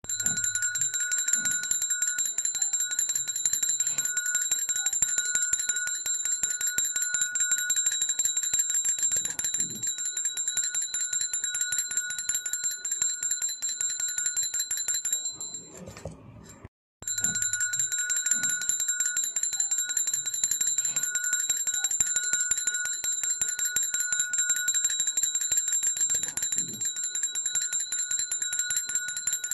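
A 2-inch golden semicircle-shaped Indian cow bell shaken rapidly and continuously, its clapper striking many times a second over a steady high ringing tone. It stops briefly about halfway through, then starts again.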